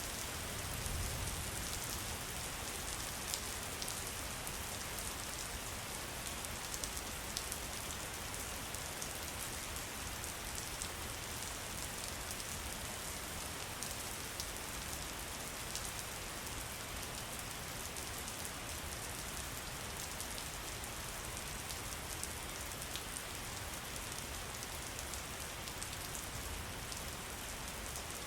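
Steady rain falling on a surface, an even hiss scattered with the sharp ticks of single drops.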